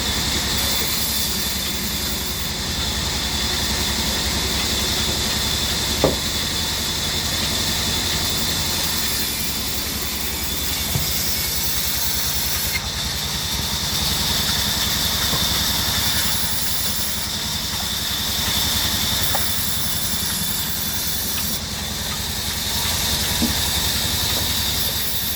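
Workshop band saw running steadily: a low motor hum under a continuous hiss, with a faint steady high whine and a brief click about six seconds in.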